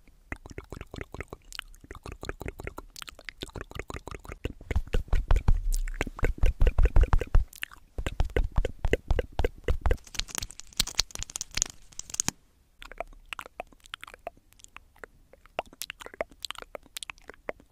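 Felt-tip marker scribbling rapidly back and forth on notebook paper in quick, scratchy strokes, heaviest and with dull thuds from about five to seven and a half seconds in.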